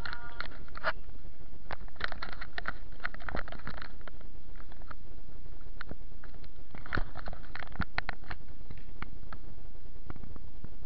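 Camera handling noise: scattered clicks, knocks and rubbing as the camera is carried and bumped around, over a steady low rumble.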